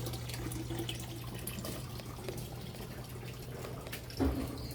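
Water trickling and dripping, with many faint ticks over a steady low hum; a short louder knock about four seconds in.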